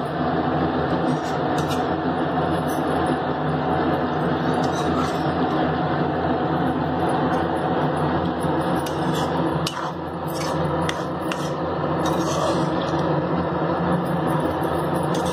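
A metal spoon scraping and clicking against a wok now and then as a watery fish curry is stirred, over a steady hiss and hum.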